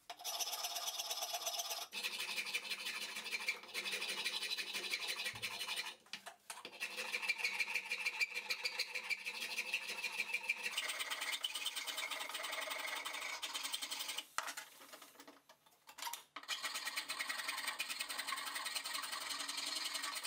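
Hand rasp and round file scraping across an oak hammer handle, stroke after stroke, with two short breaks about six seconds in and again around fifteen seconds.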